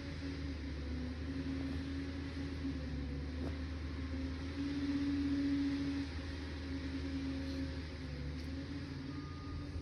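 Liebherr 746 crawler dozer's diesel engine running steadily with a low hum, growing louder for a second or so around the middle.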